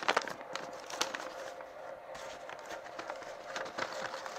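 Paper packaging rustling, with small clicks and rattles of loose wooden kit pieces as a wooden part is slid out of its paper sleeve. The clicks are densest in the first second, then sparser.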